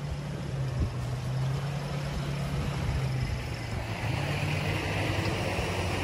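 Off-road pickup truck engine idling with a steady low hum; a higher hiss joins about four seconds in.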